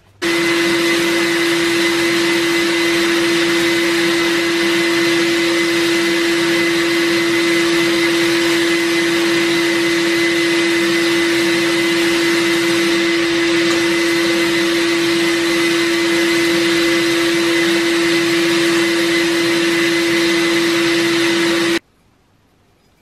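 Sandblasting cabinet in use: the blast gun's steady compressed-air hiss with a constant hum, as abrasive strips the vintage oil lamp's metal frame. It cuts off suddenly near the end.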